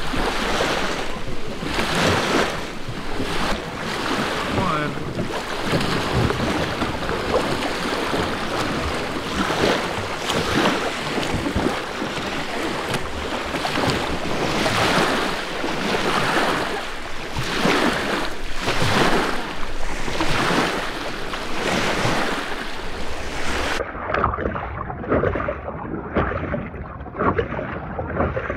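Small lake waves washing and lapping against the shore and a plastic kayak hull, with wind on the microphone. The wash swells every second or two. About 24 s in it turns duller and more muffled, out on the water.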